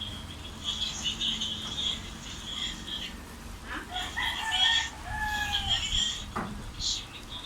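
A rooster crowing twice, each crow about two seconds long.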